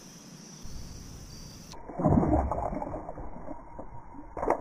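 Water splashing with a muffled low rumble as a small largemouth bass is let go from the hand beside a kayak. The rumble starts suddenly about two seconds in and fades, and a sharper splash comes near the end as the fish thrashes away.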